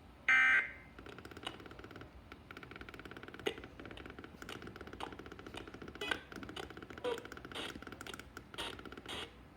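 A short, loud burst of Emergency Alert System digital data tone about a third of a second in, the kind sent at the end of an alert message. It is followed by radio static crackling with irregular clicks.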